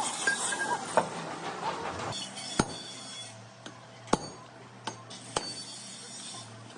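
Metal being struck: five or six sharp clinks at irregular intervals, the loudest about a second, two and a half seconds and four seconds in, over a faint low hum.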